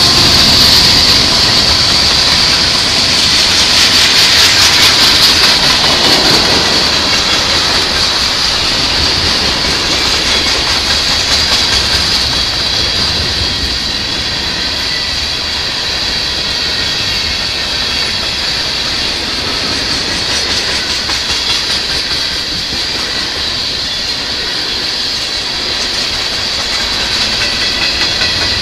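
Freight train of covered hopper cars rolling past, the wheels clacking over the rail joints under a steady high hiss. It is loudest in the first few seconds, then eases slightly.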